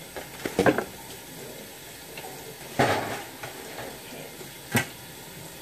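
Kitchen handling sounds: a cluster of knocks about half a second in, a short rustle about three seconds in, and a single sharp click near the end.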